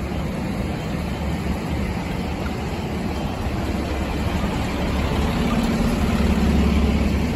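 Diesel engines of parked fire trucks running, a steady low rumble. About five seconds in a steady hum joins it and the rumble grows slightly louder.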